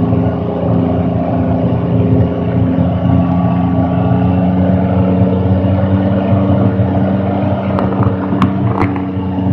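The engine of an M113A1-hull tracked reconnaissance vehicle, a Detroit Diesel 6V53 two-stroke diesel, runs steadily under way, heard from the open turret with loud rumble and rattle. A few sharp knocks come about eight to nine seconds in.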